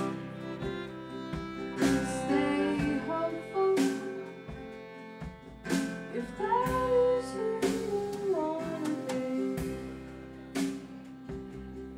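Live folk-pop band playing an instrumental passage: a violin melody with slides between notes over acoustic guitar chords strummed about every two seconds.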